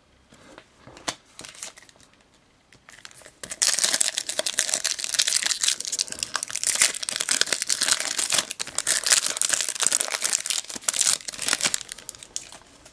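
Foil trading-card packet being torn open and crumpled by hand: loud, dense crinkling that starts about three and a half seconds in and dies down near the end, after a few faint clicks of handling.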